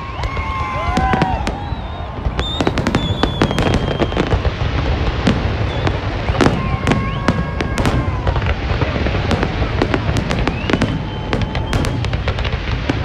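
Large aerial fireworks display going off: a dense, irregular run of sharp bangs and crackles over a continuous low rumble.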